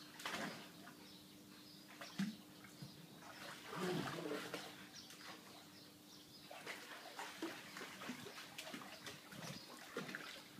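Water sloshing and splashing irregularly in a plastic paddling pool as two dogs scramble and wrestle in it.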